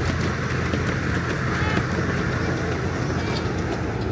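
A 7¼ inch gauge miniature steam train running along the track, heard from on board as a steady low rumble with a hiss over it.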